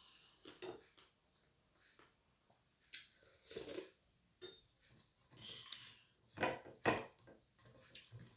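Close-up eating sounds: irregular clinks and scrapes against a plate as the last of a meal is gathered up, with a few louder knocks about six and a half and seven seconds in.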